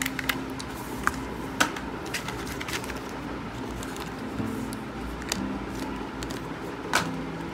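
Hands handling a charging cable, a card and a small plastic packaging bag: scattered rustles and small clicks, with a sharper tap about a second and a half in and another near the end.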